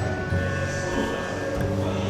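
Background music: an instrumental track with a steady bass line and sustained notes.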